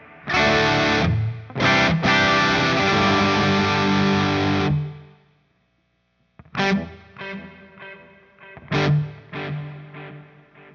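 Electric guitar played through a GFI System Orca delay pedal with distortion. Loud, dense chords ring for about four and a half seconds and cut off suddenly. After a brief silence come a few separate picked notes and chords, each trailing away.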